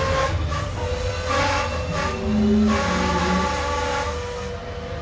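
Sri Lanka Railways passenger coaches rolling slowly past close by on the adjacent track: a deep steady rumble of wheels on rails, with thin squealing tones coming and going above it.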